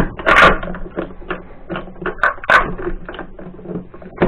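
Irregular metallic clinks and knocks of the primary and secondary shafts of a VAZ-2110-family manual gearbox being worked into the gearbox housing. The louder knocks come near the start and about two and a half seconds in.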